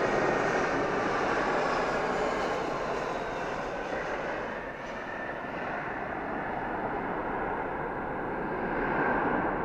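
Jet engines of an Airbus A320 airliner running at power as it passes, a steady broad rushing noise with a faint high whine, swelling slightly near the end.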